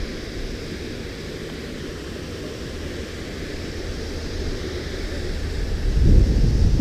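Wind buffeting the microphone as a low rumble over a steady rush of water pouring through the dam spillway gates. The wind swells toward the end, with the strongest gust near the end.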